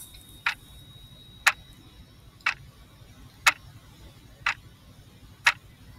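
Clock ticking sound effect, one short tick each second, six in all: a quiz countdown timer running while the answer is awaited.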